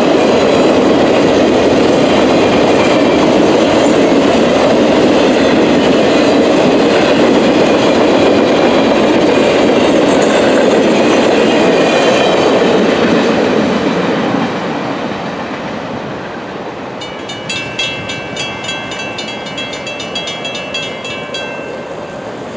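An intermodal train of Triple Crown highway trailers on rail bogies rolls past, its wheels clattering over the rails. The noise falls away about 14 seconds in as the last trailer clears. Then the grade crossing's mechanical bells ring in rapid, even strikes and stop shortly before the end as the gates rise.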